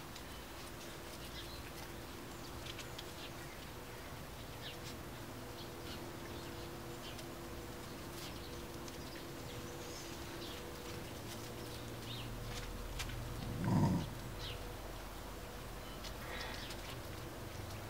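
Finnish Lapphund puppies moving over paving and dry leaves: faint light clicks and rustles of small paws and claws, over a faint steady hum. About fourteen seconds in, a dog gives a single short, low vocal sound, the loudest sound here.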